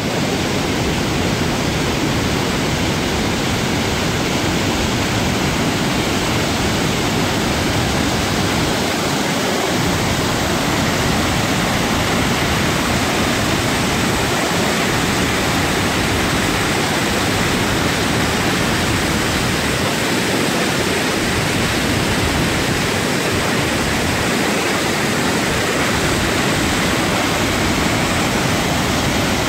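Whangarei Falls in flood, a large volume of muddy storm water rushing over the rapids and plunging down the falls in a loud, steady, unbroken rush.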